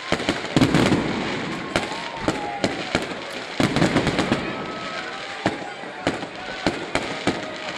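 Fireworks display: many sharp bangs from bursting shells, irregularly spaced, with crackling between them.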